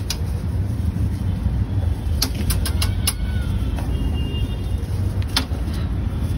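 Steady low rumble of street traffic, with several sharp clicks scattered through it.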